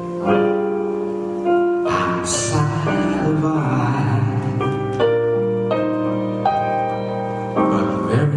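Instrumental music with piano and sustained chords changing about once a second.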